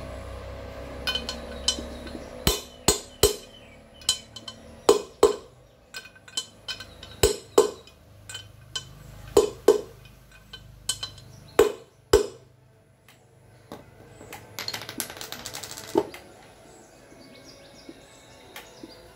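A mallet striking a socket used as a drift, driving a needle bearing into the aluminium crankcase half of a Bajaj CT 100 gearbox. About a dozen sharp knocks, mostly in pairs, each followed by a short ring from the casing.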